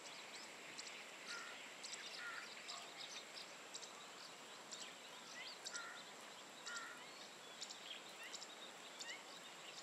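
Birds chirping and calling in short notes and quick rising whistles, scattered through, over a steady high-pitched hum.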